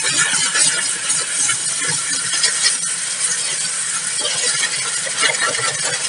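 A jet of water from a hose nozzle hitting a car's tyre and wheel arch, a steady hiss with crackling splashes as mud is rinsed out of the arch.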